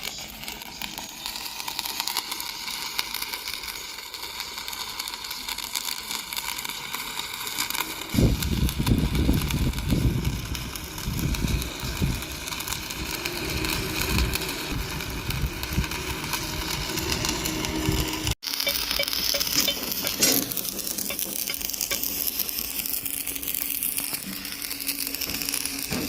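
Stick (arc) welding: the electrode's arc crackling and sizzling steadily. From about a third of the way in, heavy irregular low rumbling joins it, and the sound cuts out for an instant about two-thirds through.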